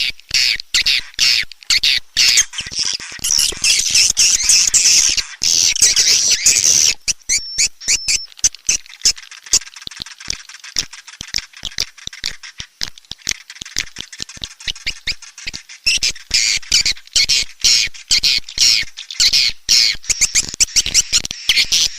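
Edible-nest swiftlets chirping and twittering in a dense, shrill chorus over fast dry clicks: a swiftlet call track of the kind played to lure swiftlets into a nesting house. The twittering thins to mostly clicks for several seconds in the middle, then swells again.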